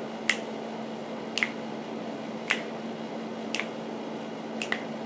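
Fingers snapping in a slow, even beat, about one snap a second, with two snaps close together near the end, over a steady low hum.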